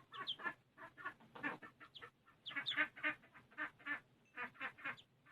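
Indian runner duckling peeping in a quick series of short, high calls, about three or four a second, with a brief pause near the end.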